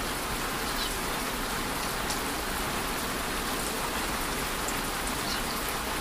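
A steady, even hiss like light rain falling, with a few faint ticks.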